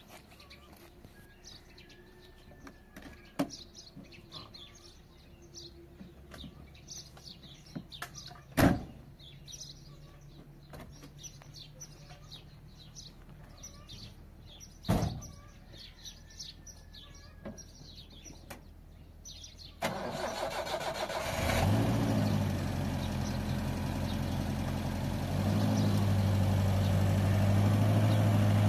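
Car doors slam shut twice, with birds chirping. About 20 seconds in, an old Paykan sedan's engine is started: it cranks, catches and settles into a steady idle, which steps up louder about 25 seconds in.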